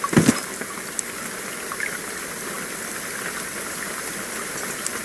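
Steady heavy rain falling, with one short low thump just after the start and a few faint drips or ticks.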